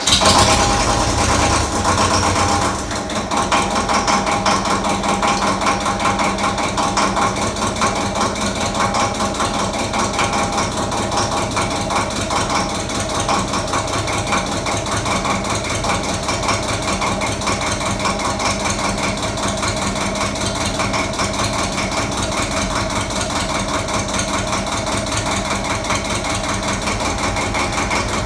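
Ford 1700 tractor's three-cylinder diesel engine running at idle just after starting, a little louder for the first couple of seconds and then steady, while the loader hydraulics raise the front bucket.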